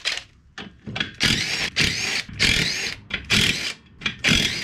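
Cordless drill/driver running in several short bursts on the fastener holding a riding mower's rear wheel to its axle, taking the wheel off.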